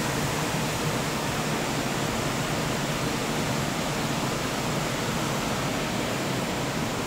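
Steady engine-room background noise: an even rushing sound with a faint low hum beneath it and no distinct rhythm or knocks.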